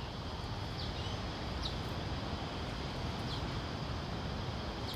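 Wild birds giving a few short, high chirps, each falling in pitch, spaced a second or more apart, over a steady low rumble of outdoor background noise.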